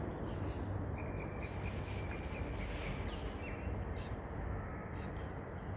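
Steady outdoor background noise with a low rumble, and a few faint bird calls: one held high note about a second in, then short chirps around three seconds in.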